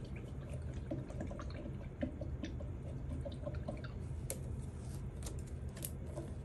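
Paintbrush dabbing and tapping paint onto paper and a paper-plate palette: soft, irregular little ticks over a steady low hum.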